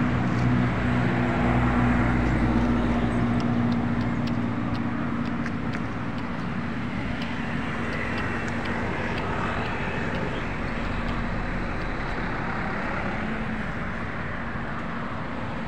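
Steady road traffic noise from passing vehicles, with a low engine hum that is strongest in the first few seconds.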